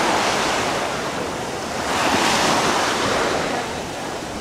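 Ocean surf breaking and washing up a sandy shore. One wash fades at the start and another swells and recedes about two seconds in.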